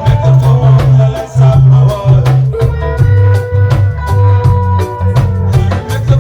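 A live reggae band playing lovers rock: a heavy bass line and drum kit keeping a steady beat, with held melodic notes over them.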